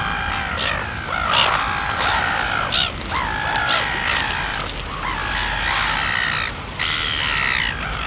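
Flock of red-billed gulls calling: many harsh, overlapping squawks one after another, with a louder, higher call near the end.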